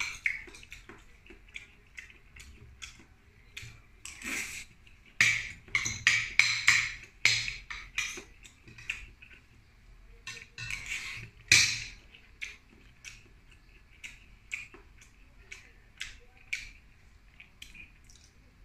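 Close-up eating sounds of a man eating seafood and rice by hand: irregular lip smacks, chewing and sucking meat from mussel and clam shells, with small clicks of shells and spoon.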